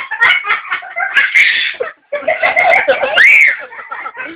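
A baby laughing in bursts of high-pitched giggles and squeals. The loudest, a rising and falling squeal, comes about three seconds in.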